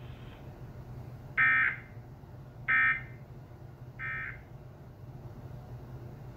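Emergency Alert System end-of-message (EOM) data bursts closing a severe thunderstorm warning: three short, harsh, buzzy digital tone bursts a little over a second apart, the third quieter. A steady low hum runs underneath.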